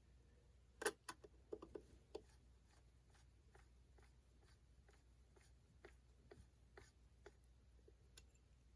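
Faint, scattered clicks and light taps of small hardware being handled while fitting carbon fiber panels to an RC truck's roll cage, with a short cluster of clicks about a second in.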